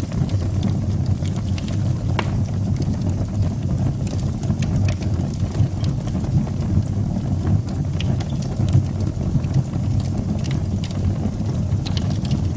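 Fire burning in a fireplace: a steady low rumble of flames with scattered small crackles and pops.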